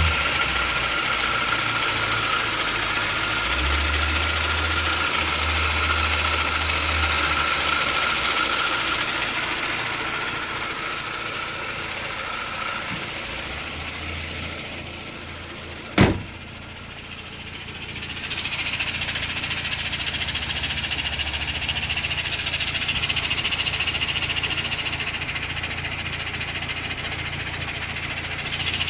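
Car engine running with a steady hum and a thin high whine, the weird noise the owner is trying to diagnose. The sound fades gradually, then a single sharp click comes about sixteen seconds in. The engine sound drops briefly after it and then resumes.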